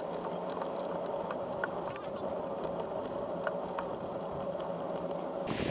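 Bicycle rolling along a rough asphalt lane: steady tyre and riding noise picked up by the bike-mounted camera, with a constant hum and scattered small rattles and clicks.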